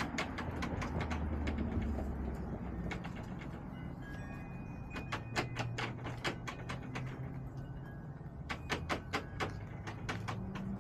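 Backyard hens in the coop: quick runs of sharp pecking taps over low, wavering murmuring and crooning.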